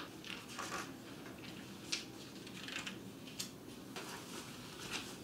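Soft, irregular rustling of bedclothes and magazine pages, with a few sharper crinkles about two seconds in and again near three and a half seconds.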